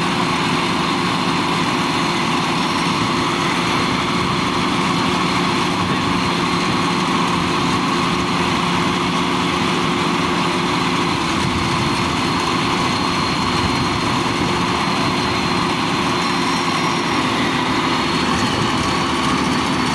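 Rice combine harvester running steadily, its engine and machinery giving a constant, even drone with a thin high whine.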